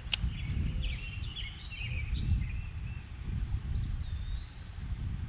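Birds singing outdoors: a run of quick chirps in the first few seconds, then a single longer whistled call about four seconds in. Under them is a low rumble of wind on the microphone, and there is one sharp click right at the start.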